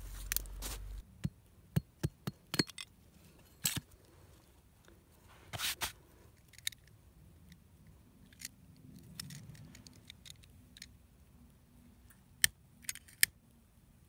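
Scattered sharp snaps and clicks of dry sticks and wood shavings being handled and broken by hand, with three loud clicks near the end.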